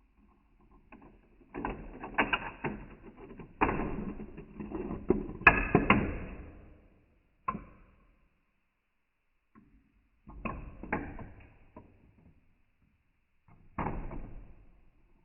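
Glass marbles rolling and clattering through a wooden UGears marble run, with dense runs of rapid clacks and rattles, then a few shorter bursts as marbles drop through the track.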